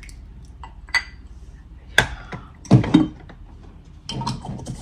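Glass clinks and knocks as jars of thick sauce and footed glass dessert bowls are handled and set down on a table. The loudest knocks come about two and three seconds in, with a patter of smaller clinks near the end.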